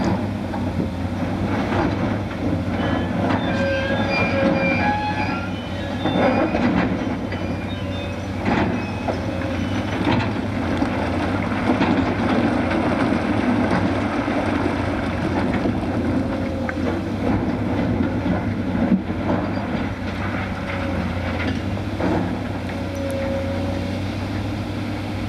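Diesel-powered heavy machinery, a crawler crane and an excavator working riprap from a barge, running steadily with a constant low hum. Irregular clanks and knocks of rock and steel and a few brief squeaks sound over it.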